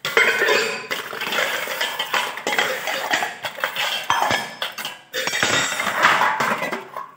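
Stainless steel bowls, plates and pots clattering and clinking against each other as washed utensils are stacked and turned upside down to drain, with a brief lull about five seconds in.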